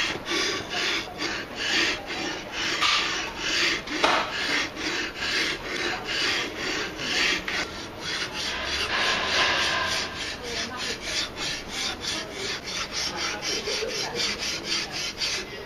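A hedge shear blade being stroked back and forth on a wet whetstone: a steady rhythm of scraping strokes, about two to three a second, coming quicker in the last several seconds.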